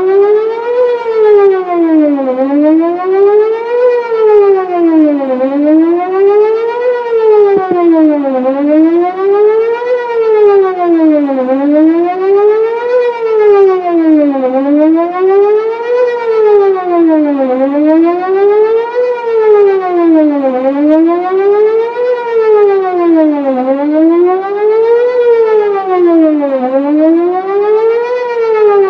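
Whelen WPS-4008 electronic warning siren sounding its Best Possible Protection wail: a loud tone rising and falling about every three seconds, its pitch sweeping up and down by about an octave. Its rotator is broken, and the loudness stays fairly even throughout.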